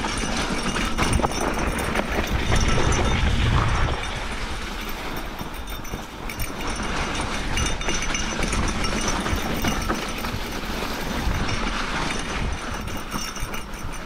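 Mountain bike rolling downhill over a snowy, rutted trail: tyres rolling through snow and dirt and the bike rattling over the bumps, with a steady clatter of small knocks. It is louder for a stretch about two to four seconds in.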